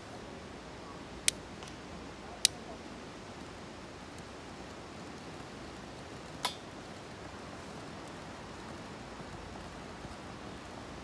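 Three sharp clicks from a long-nozzle utility lighter's igniter being fired to light kindling: two about a second apart, then a third some four seconds later, over a faint steady outdoor background.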